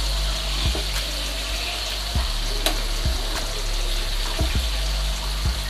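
Marinated fish pieces shallow-frying in hot oil in a pan, sizzling steadily, with a few light clicks of metal tongs against the pan as the pieces are turned.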